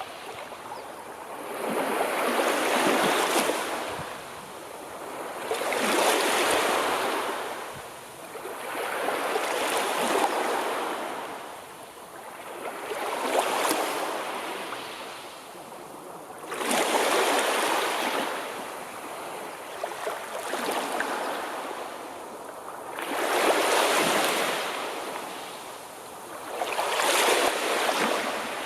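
Sea waves washing in and drawing back, the surf noise swelling and fading in a slow regular rhythm, about one wave every three and a half seconds.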